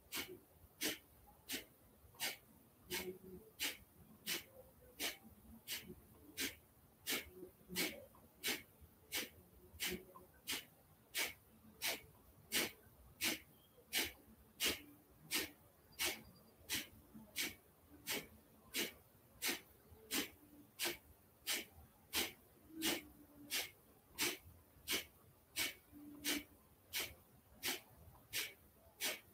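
Kapalabhati breathing: short, forceful exhalations snapped out through the nose in a steady rhythm, about three every two seconds.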